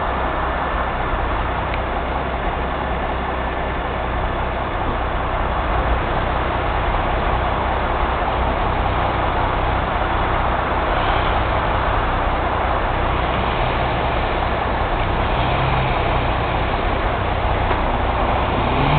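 John Deere backhoe's diesel engine running steadily at close range.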